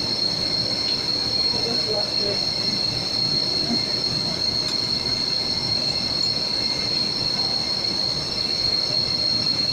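Engine idling roughly, with a steady high-pitched whine over a continuous uneven rumble; the rough idle is put down to an ECM-controlled fuel injector stuck open.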